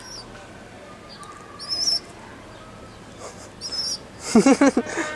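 A bird chirping: two short, high, wavering chirps about two seconds apart. Near the end a louder voice-like call breaks in for about half a second.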